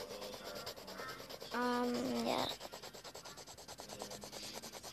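Fast back-and-forth colouring strokes of a pencil scratching on paper, about ten strokes a second. About a second and a half in, a voice hums a short held note over it.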